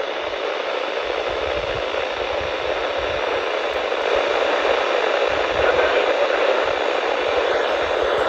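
Steady static hiss from a weather radio receiver with no intelligible broadcast, getting slightly louder about four seconds in.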